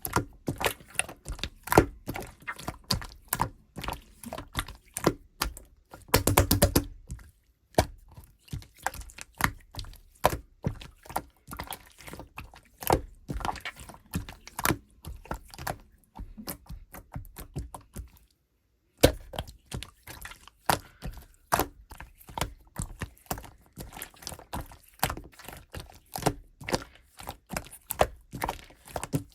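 Clear slime being squished and pressed by hand, giving a dense, irregular run of sticky clicks and small pops. The clicks stop for about half a second near the middle.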